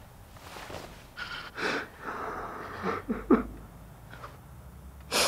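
A young man sobbing: ragged, gasping breaths with a few short voiced catches about three seconds in, and a sharp in-breath near the end.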